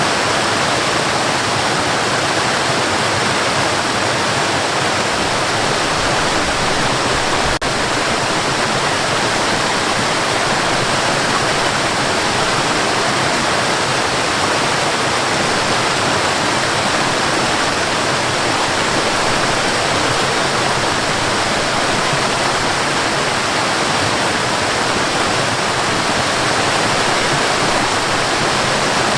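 Cascading water rushing in a steady, even stream, like a small waterfall.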